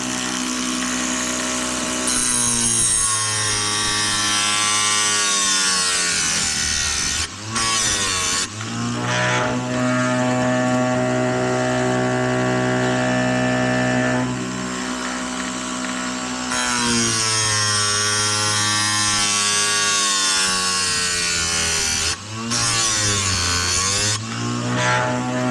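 Oregon electric chainsaw-chain sharpener running with a steady motor hum, its grinding wheel working across chain teeth. The hum's pitch sags and recovers twice as the wheel takes load.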